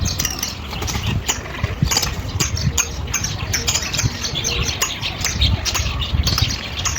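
Many small birds chirping over one another in an aviary, with a low rumble underneath.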